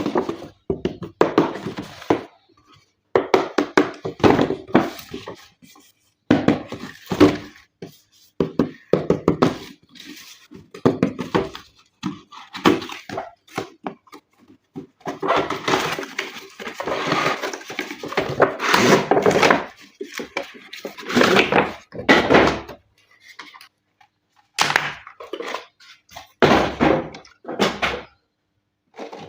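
Unboxing handling noise: irregular knocks, clatter and crackling of packaging and plastic RC toy parts being handled, in short runs with brief pauses between them.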